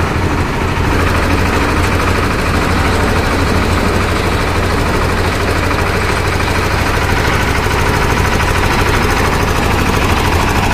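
Engine of a concrete mixer with lift attachment running steadily, with a fast, even knocking beat under a low hum.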